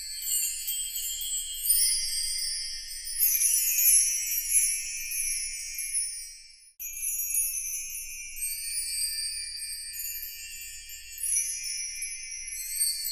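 High, sustained chime tones ringing in layers, with nothing in the low range. They fade out about halfway through and start again at once.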